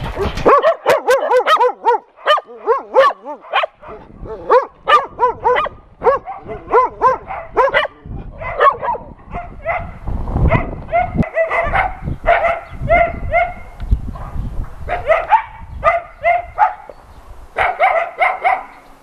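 A pack of dogs barking and yipping over one another in quick runs, with high wavering whines among the barks in the first few seconds.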